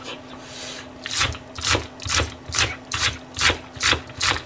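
Kitchen knife slicing green onion (negi) on a cutting board: steady chops through the stalk onto the board, about two a second, starting about a second in.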